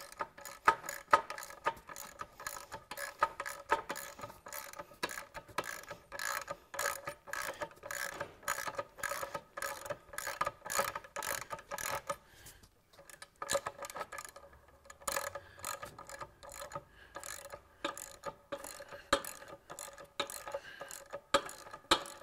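Ratchet wrench clicking in runs as it backs out the steel bolts of a motorcycle's taillight and license-plate bracket, each click with a light metallic ring. The clicking pauses briefly a little past halfway.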